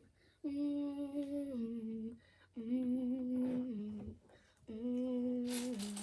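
A child humming a tune: three held phrases, each stepping down in pitch, with short pauses between them. A brief rustle comes near the end.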